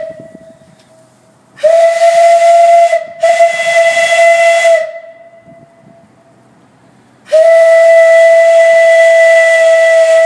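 Homemade steam whistle blown on steam at about 30 psi from a propane-fired steam generator. It gives three blasts, each a steady tone over hissing steam: two short ones close together, then a longer one of about three seconds that cuts off near the end.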